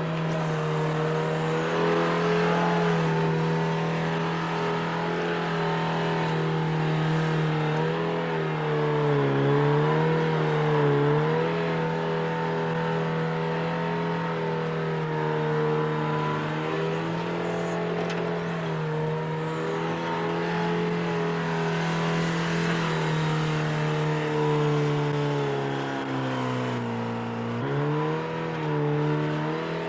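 Backhoe engine running steadily, its pitch sagging briefly under load twice, about a third of the way in and again near the end. A few faint high squeals come through now and then.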